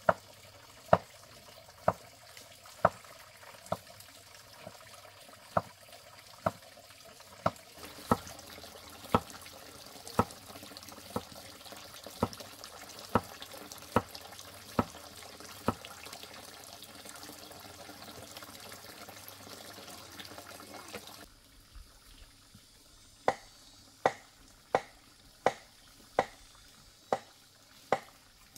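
Sharp knocks repeating evenly about once a second over a steady hiss like running water. About 21 s in, the hiss drops away and the knocks come a little faster.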